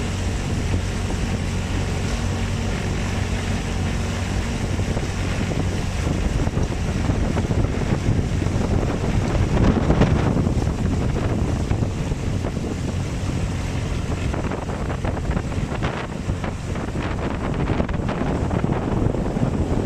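Wind buffeting the microphone aboard a moving outrigger boat on choppy water, with the low steady drone of the boat's engine underneath. The gusts swell briefly about halfway through.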